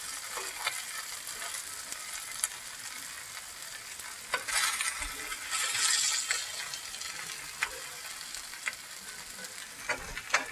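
Sliced squash and onions sizzling in a frying skillet, browning, while a spoon stirs and turns them. The stirring gets louder and scrapier about four to six seconds in, with a few sharp taps of the spoon against the pan along the way.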